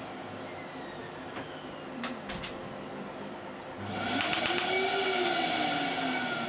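Steady hum of an Asclepion MCL30 Dermablate fractional laser unit, with a few clicks. About four seconds in, as the handpiece is pressed to the skin, a louder hiss with rapid ticking starts: the laser firing its treatment pulses.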